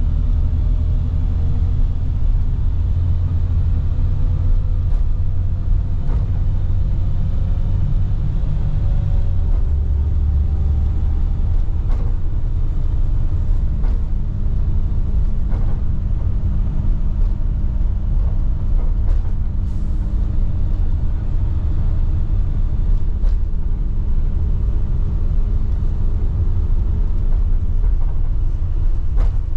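Inside a 2010 IC FE300 school bus under way, heard from the rear seats: the MaxxForce DT inline-six diesel droning with heavy road rumble, its note drifting slowly as the speed changes. A few light clicks and rattles come through now and then.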